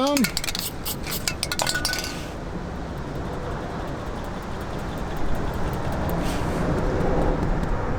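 A quick run of light clicks and taps for about the first two seconds, then only a steady background noise.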